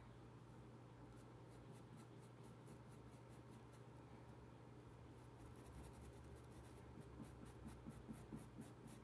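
Faint, quick strokes of a paintbrush scrubbing paint into a cotton tea towel, about three strokes a second.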